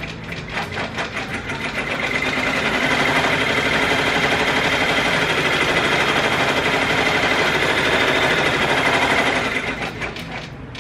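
Brother Entrepreneur multi-needle embroidery machine stitching. It begins with separate, rapid stitches, speeds up to a fast steady run about two seconds in, then slows and stops near the end. It is sewing down the cow-print applique fabric, the tack-down pass before the fabric is trimmed.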